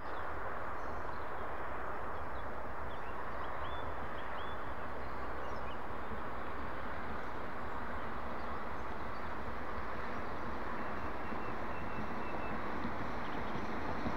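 Steady rumble and hiss of traffic on a wet road as a Mercedes-Benz fire tanker approaches, with no siren sounding. A few faint bird chirps come in the first few seconds.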